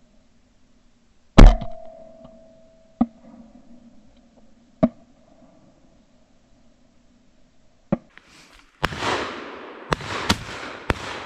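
Shotgun shots at flighting ducks. First a heavy, muffled thump with a ringing tone after it, as picked up by a camera mounted on the gun; then single sharp reports at intervals, and near the end several shots in quick succession that echo.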